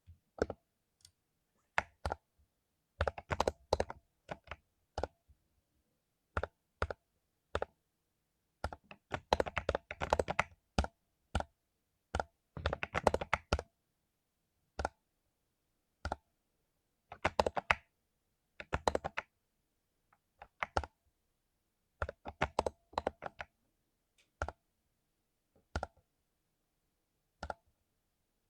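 Mechanical keyboard with lubed Cherry MX Silver linear switches being typed on in irregular spurts: short runs of fast keystrokes, single key presses and brief pauses between them.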